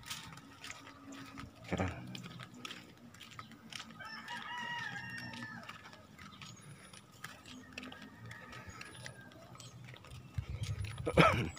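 A rooster crowing once, one long call about four seconds in. There is a thump about two seconds in and a brief louder noise near the end.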